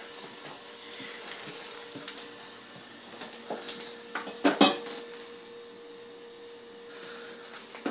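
Two or three sharp clanks of a stainless steel dog food bowl about halfway through, over a steady faint hum.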